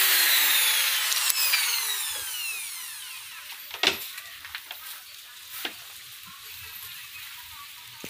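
Handheld corded electric drill spinning down after running, its whine falling in pitch and fading over about three seconds. A few sharp clicks follow, the loudest about four seconds in.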